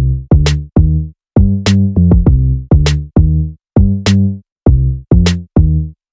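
Background electronic music: a drum-machine beat of deep bass hits and sharp snare-like clicks, with short breaks between phrases.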